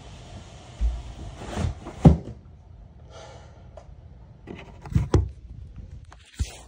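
A few dull knocks and bumps of things being handled, the loudest about two seconds in and a close pair about five seconds in.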